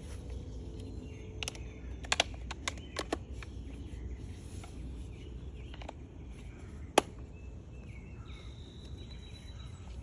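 Sharp clicks and taps of hard plastic plant-support pieces being snapped and wiggled into a Greenstalk vertical planter. There is a quick cluster of clicks about two to three seconds in, then a few single ones, the loudest about seven seconds in. A steady low outdoor background runs under them, and a thin high steady tone comes near the end.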